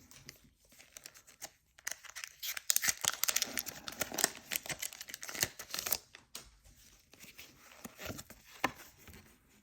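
Foil wrapper of a Pokémon booster pack being torn open and crinkled, a dense run of crackling rustles starting a couple of seconds in.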